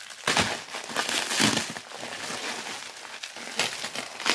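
Plastic bubble wrap crinkling and rustling in irregular bursts as hands pull it off and around packed items in a cardboard box.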